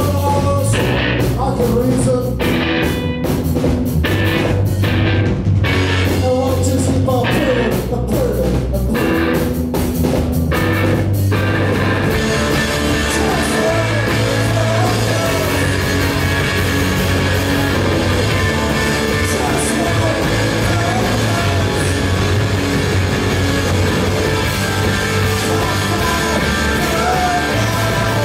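Post-punk rock band playing live and loud, with drums, electric guitar and a man singing into a microphone. For about the first twelve seconds the band plays in short stabs with brief gaps between them, then settles into a dense, continuous sound with cymbals ringing over it.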